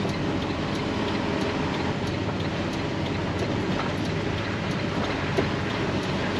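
Western Star semi-truck's diesel engine running steadily at low speed, heard from inside the cab as a continuous low rumble while the truck is slowly manoeuvred.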